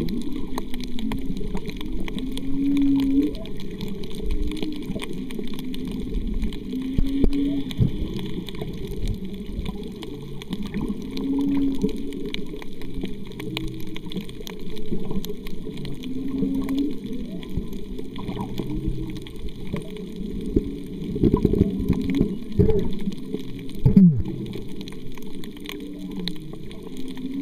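Muffled underwater sound picked up through a camera's waterproof housing: a low rush of water with short, low moaning tones recurring every few seconds, and a single sharp knock near the end.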